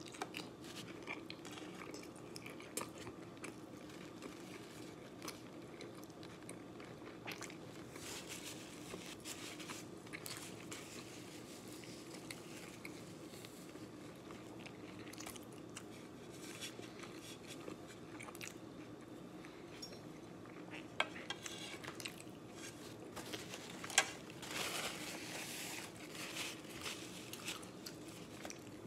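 Close-up eating of a burrito: steady chewing with wet mouth sounds and many small crunches and clicks, turning louder and crackly near the end.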